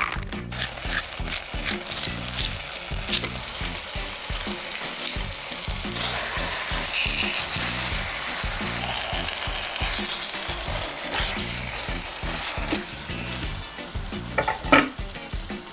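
Spicy marinated duck meat sizzling as it fries in an electric grill pan, stirred and pushed around with chopsticks, with a few sharp clicks of the chopsticks against the pan near the end.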